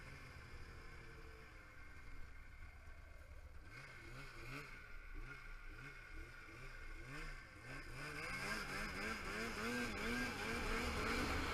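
Arctic Cat snowmobile's two-stroke engine running on the trail, its pitch wavering up and down about twice a second. About eight seconds in it grows louder and higher as the sled speeds up.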